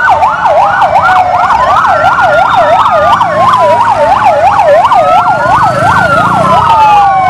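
Several fire engine sirens sounding at once: a fast yelp sweeping up and down about three times a second, overlapped by slower wails that rise and fall, over a low rumble from the trucks.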